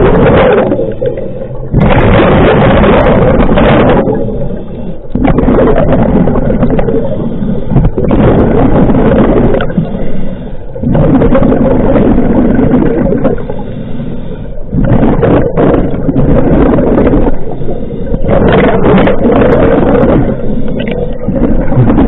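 Scuba regulator breathing heard underwater: long rushing bursts of exhaled bubbles, two to four seconds each, with brief lulls between breaths every few seconds.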